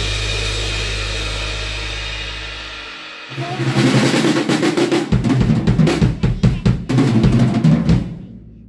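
The last held chord of the rock backing track fades out, then a Tama acoustic drum kit is played in a fast roll of rapid strikes across snare and toms, the bass drum joining about halfway, before the drums ring out near the end.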